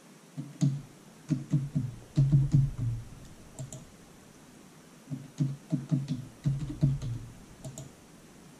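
Computer keyboard keys being typed in two quick runs of several strokes each, with a pause of about two seconds between them: a password typed in, then typed again to confirm it.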